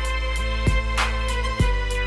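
Music with a heavy beat: deep held bass notes and chords under sharp kick and snare drum hits.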